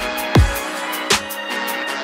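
Electronic dance music: deep booming kick drums that drop sharply in pitch, over sustained synth chords and crisp hi-hat strikes.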